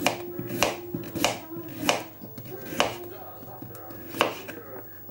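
Kitchen knife slicing radishes on a cutting board: about six irregular chops, each a sharp knock of the blade through the radish onto the board.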